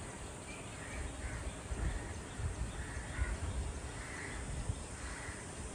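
Crows cawing, faint short calls about once a second, over a steady low background rumble.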